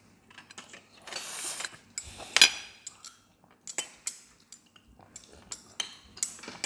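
Metal cutlery clinking and scraping against a plate and the tabletop, with one sharp clack, the loudest, a little over two seconds in, and a few lighter clicks after it.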